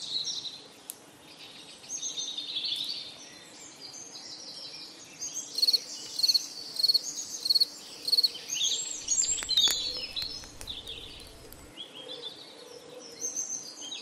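Several wild birds singing and chirping at once. About six seconds in, one bird gives a string of loud, evenly repeated notes, about three a second for two seconds.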